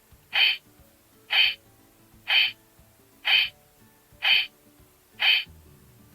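Electronic sound effect from a CSM Kamen Rider 1 Typhoon transformation belt's speaker: a short hooting tone repeated six times, about once a second.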